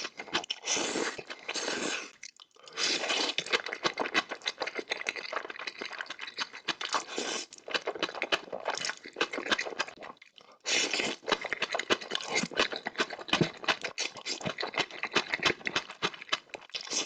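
Close-miked eating sounds: spicy noodles being chewed and slurped, with wet clicks and crunchy bites, in long stretches broken by two short pauses.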